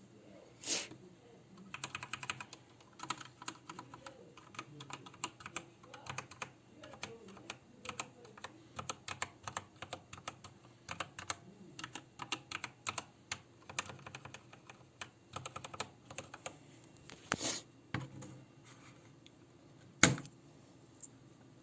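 Typing on a ZET Blade Pro mechanical keyboard with Kailh Red optical linear switches: quick, irregular runs of keystrokes. Louder single thuds come about a second in and twice near the end, the last one the loudest.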